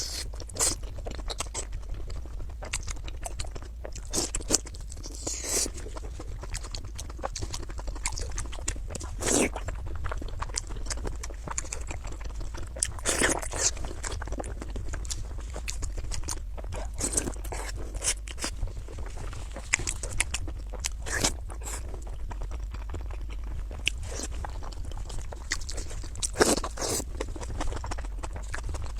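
Close-up chewing and biting of a person eating, with irregular crunchy mouth sounds scattered throughout, over a steady low hum.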